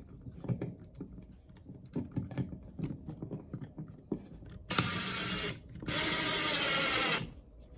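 Small clicks as a screwdriver bit is fitted to a slotted screw, then an electric screwdriver runs twice, under a second and then just over a second, driving the slotted screw back into a pre-drilled board.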